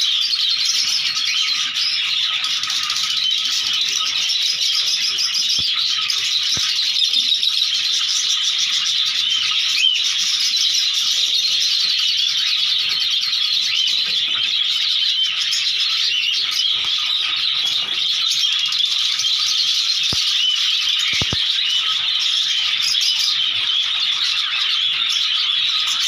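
A flock of cockatiels chirping and chattering together, a dense, unbroken chorus of many overlapping high calls.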